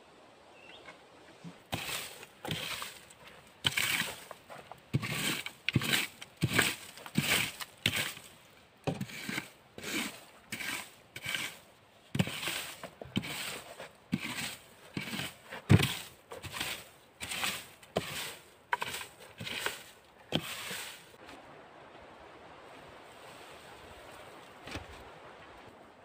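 Old hay rake scraping dry pine needles, wood chips and twigs across the forest floor in quick strokes, about two a second, stopping about 21 seconds in.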